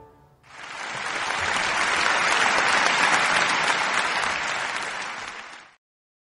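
Applause starting about half a second in, holding steady, then cut off abruptly near the end.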